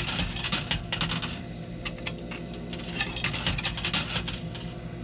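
Quarters clinking in a coin pusher arcade machine as they are dropped in and land on the coin-covered shelves, in irregular runs of clinks that come thickest near the start and about three seconds in, over a low steady hum.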